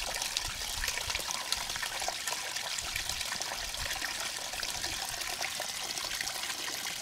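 Water trickling steadily, a continuous splashing hiss with no pauses.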